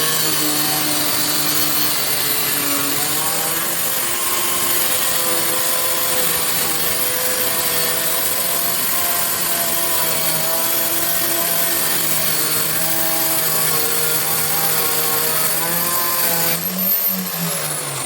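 Wandeli QX1200 electric tile cutting machine running at high speed with its blade cutting, a steady loud whine whose pitch wavers with the load. Near the end it is switched off, and the motor and blade wind down with a falling whine.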